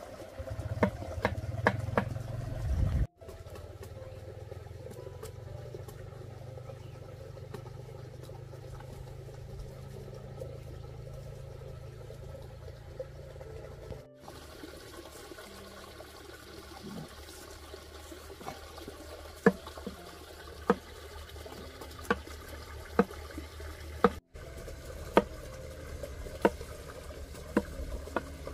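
Sharp knocks about once a second as wild tubers are cut and peeled with a knife, over a steady low rush in the background.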